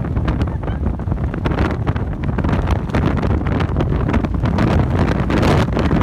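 Gale-force wind, about 70 mph, blasting across the microphone: a loud, constant rumbling buffet with gusts, growing a little stronger in the second half.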